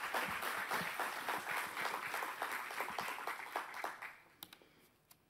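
Audience applauding, dying away about four seconds in, followed by a few faint clicks.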